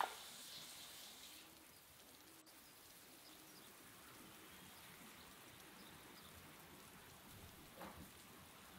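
Kitchen tap running water into a sink, with a click at the start; the water sound stops about a second and a half in, leaving faint outdoor background.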